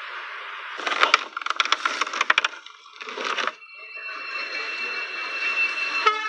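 Crackling, clicking handling noises as a travel bag is packed: a quick run of sharp irregular clicks about a second in, and a shorter burst a second later. After that there is a steady hiss with a faint high whine, and a single click near the end.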